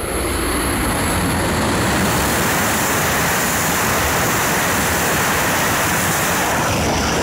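Tohoku Shinkansen E5 series train passing through a station at high speed without stopping: a loud, steady rushing noise, its hiss thinning near the end.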